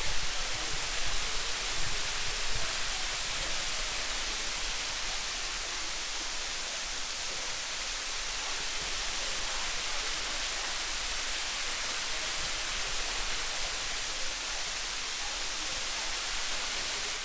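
Waterfall with water pouring into a creek pool: a steady rushing hiss, with a few brief knocks in the first two seconds.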